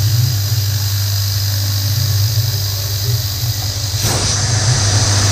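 PM30-MV milling machine running, its spindle driving an end mill through a metal part under a coolant spray: a steady low hum with a thin high whine over it. A louder hiss joins in about four seconds in and stops near the end.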